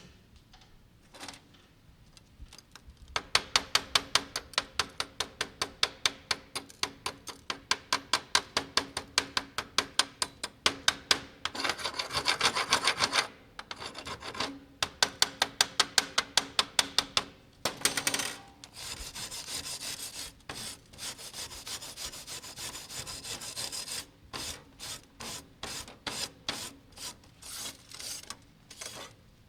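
Rapid back-and-forth rubbing or rasping strokes, about five a second, like a file or brush worked over a surface. The strokes merge into steadier rubbing in a couple of stretches, then slow to spaced single strokes near the end.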